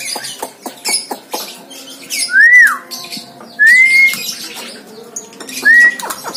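Javan myna giving three loud whistled notes, each sliding upward, the first falling away again, after a run of short clicking chatter in the first two seconds.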